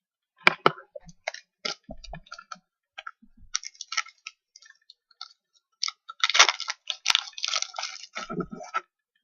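Trading cards and packs being handled: a string of sharp clicks and short rustles, with a denser run of rustling starting about six seconds in and lasting about two seconds.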